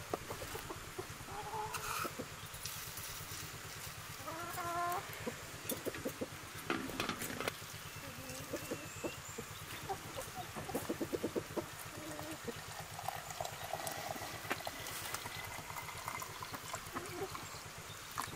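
Chickens clucking now and then, with scattered light clicks and knocks.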